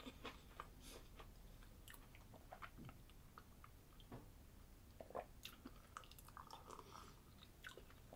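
Faint mouth sounds of a person drinking and chewing instant soup from a cup: scattered soft sips, swallows and small clicks.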